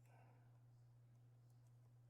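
Near silence: a steady low electrical hum, with a few very faint ticks.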